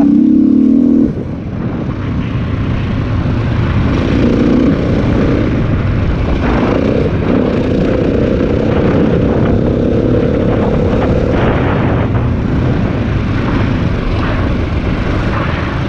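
Dirt bike engine running under way, heard from the rider's own bike, its pitch rising and falling with the throttle. It is loudest for the first second, then eases off and runs on steadily.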